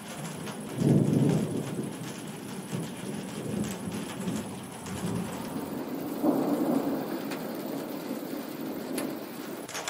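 Thunder rumbling over steady rain. A loud deep roll comes about a second in, and a second roll about six seconds in.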